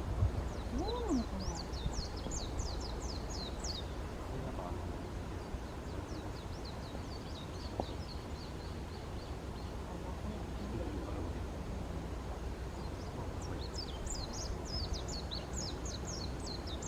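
A songbird singing three phrases of quick, high, descending notes: one near the start, a softer run in the middle, and one near the end. A short lower rising-and-falling call comes about a second in, and a steady low rumble runs underneath.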